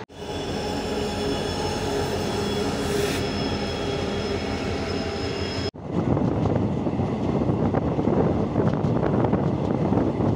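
Passenger train heard from a coach window: for the first half, a steady rolling noise with a high, held squeal. It cuts suddenly to the louder, even rumble and rush of the train running at speed over the track.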